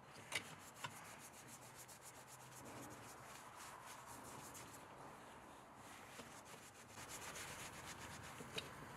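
A rag wiping carbon buildup out of the bore and plate of a 2012 VW Jetta 2.5's throttle body, heard as a faint rubbing. There are two light clicks in the first second, and the rubbing grows a little louder toward the end.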